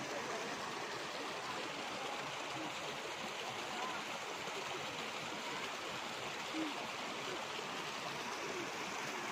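Water of a small waterfall stream running steadily, with faint voices of people in the background.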